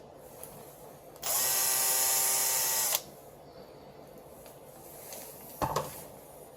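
Electric drill-driver motor whirring for under two seconds, briefly rising in pitch as it spins up, as screws are driven in or out. A short knock follows near the end.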